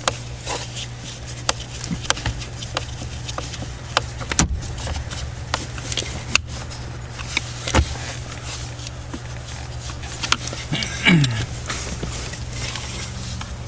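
Scattered sharp clicks and knocks of a wrench tightening the blower motor's mounting screws, over a steady low hum, with a brief falling tone near the end.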